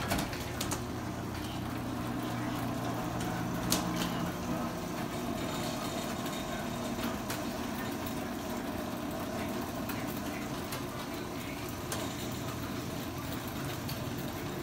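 Chain-drive garage door opener running steadily as it raises a sectional garage door: a constant motor hum that starts abruptly, with a brief click about four seconds in.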